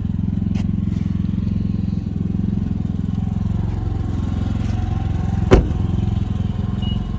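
A nearby engine running steadily with an even, fast low pulse. A single thump about five and a half seconds in, as a car door is shut.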